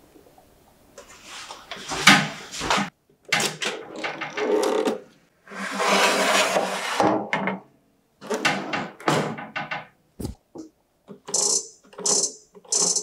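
A metal baking tray is handled and slid into a Balmuda countertop oven, with a long scrape of the tray going in about six seconds in and a short knock about ten seconds in. From about eleven seconds the oven's dial gives a run of quick, high ticks as it is turned to set the time.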